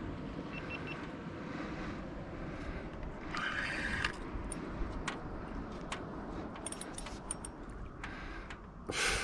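Faint, irregular metallic clicks and taps of fishing gear against a steady low wash of wind and water while a fish is played on a rod from a small aluminium boat, with a brief rush of noise about three seconds in and a louder one near the end.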